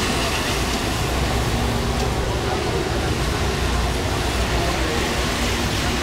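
Busy city street in the rain: a steady wash of traffic on the wet road, with buses passing and the chatter of passers-by.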